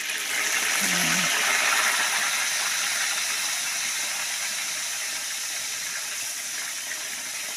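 Salted fish sizzling as it goes into hot cooking oil: a hiss that starts suddenly, is strongest in the first couple of seconds, then slowly eases to a steady frying sizzle.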